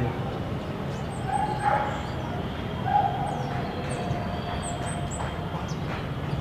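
Brief animal calls over a steady low background noise: a short call about a second in and a louder one about three seconds in, with faint high chirps here and there.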